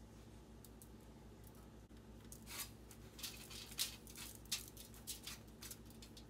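A hand rubbing salt and pepper into raw trout fillets on a foil-lined baking tray. Starting about two seconds in comes an irregular string of soft rubbing and crinkling noises as the fish is pressed and pushed over the aluminium foil.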